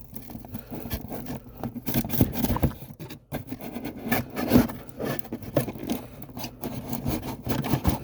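A shipping package being worked open by hand: irregular scraping, rubbing and crinkling of the packaging with small knocks and clicks.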